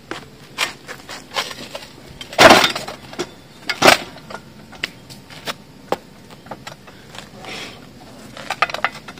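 Sandstone blocks and a hand truck's steel toe plate knocking and scraping on stone paving as a block is shifted onto the truck. A string of knocks; the two loudest come about two and a half and four seconds in, the first drawn out into a short grinding scrape.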